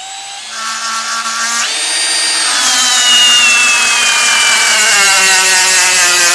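Milwaukee M18 Gen 4 Fuel hammer drill on speed 1 driving a socket on a large lag bolt in a torque meter. The motor whines gently at part trigger, then jumps to full speed about 1.7 seconds in, and its pitch slowly falls as the bolt tightens and the load builds.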